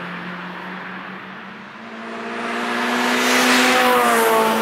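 A car approaching at speed and passing close by, its engine growing louder over a couple of seconds. The engine note drops in pitch as the car goes past, about four seconds in, and then falls away abruptly.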